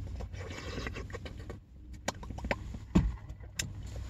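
Scattered small mouth clicks and lip smacks of a person tasting a drink, over the low steady hum of a car cabin.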